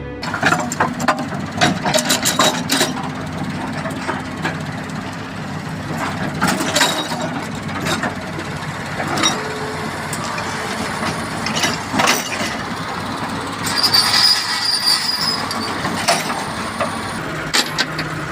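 Heavy machinery at work: a steady engine hum under repeated sharp metal clanks and knocks, with a brief high squeal about two-thirds of the way through.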